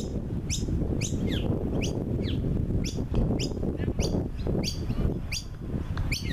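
A bird calling over and over in sharp, high chirps that each sweep downward, about two a second.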